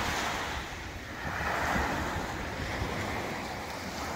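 Sea waves breaking and washing up the shore, swelling twice, with wind rumbling on the microphone.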